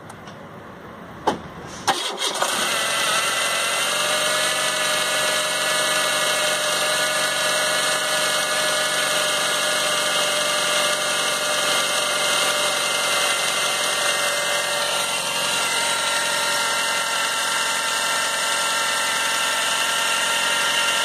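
Renault Scénic engine starting about two seconds in, then running steadily with a constant whine from the power steering pump. The pump is faulty.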